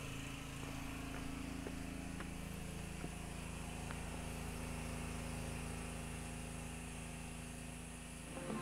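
Steady low hum of a distant engine, with a few faint ticks.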